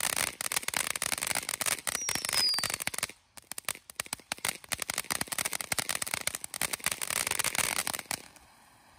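Live Wire consumer fireworks fountain spraying sparks with dense rapid crackling. The crackle dips briefly about three seconds in, just after a short falling whistle, then picks up again and cuts off about eight seconds in.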